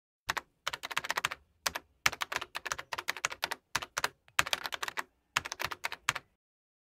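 Computer keyboard typing: rapid clicking in bursts of about a second each with short pauses between, stopping a little after six seconds in.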